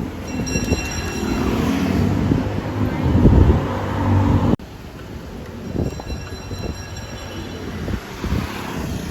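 Street traffic: a heavy vehicle rumbling close by with a high whine, loudest about three seconds in. The sound cuts off abruptly about halfway through and gives way to quieter traffic rumble with a similar whine.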